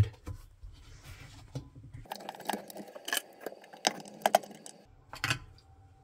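Small, scattered clicks and light metallic rattles as a screw is set and driven into the dishwasher's plastic pump cover.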